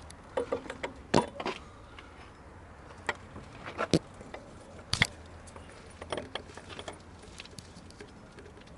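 Irregular metallic clinks and taps of a water pump and its bolts being handled and set in place on the engine block during installation.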